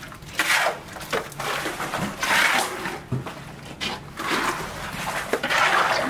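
Wet concrete being shovelled into rubber buckets: the repeated scrape and slop of the shovel through the mix and the concrete dropping into the buckets, about once a second.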